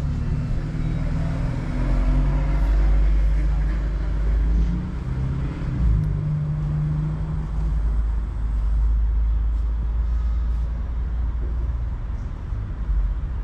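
White cat purring with its face right against the microphone, a loud steady low rumble.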